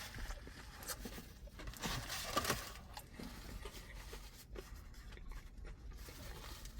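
Faint eating sounds of fried chicken being chewed and pulled apart: scattered small crunches and clicks at a low level.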